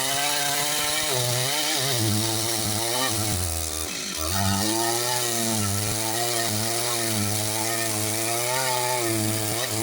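Large Stihl two-stroke chainsaw cutting into a big rain tree trunk, its engine note wavering under load, dropping briefly about four seconds in and then picking back up.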